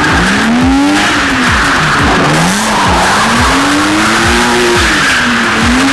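BMW Z3 drift car with a swapped M52 straight-six, revving up and down several times through a loud exhaust, while the rear tyres squeal and spin in a smoky drift.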